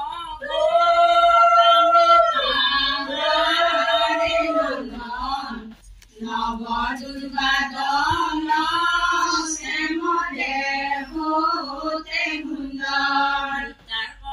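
Women singing an Assamese biya naam (traditional wedding song) without instruments: long held notes at first, then after a brief break about six seconds in, a busier, moving melody.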